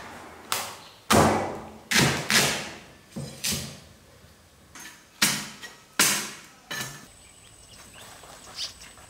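A series of about ten sharp knocks or thuds at uneven intervals, each dying away quickly.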